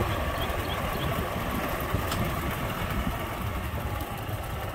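Vehicle engine running at low speed, with a steady low rumble as it rolls slowly along a dirt road.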